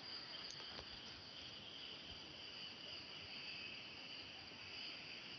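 Faint, steady, high-pitched chorus of insects chirring.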